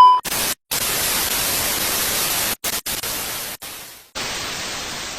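A loud steady beep tone cuts off right at the start, followed by an even hiss of white-noise static, broken by several brief dropouts and fading out near the end.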